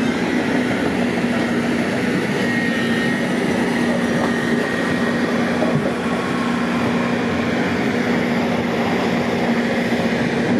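Heavy diesel earthmoving machinery running steadily with a constant engine drone while compacting and trimming a road embankment into a slope.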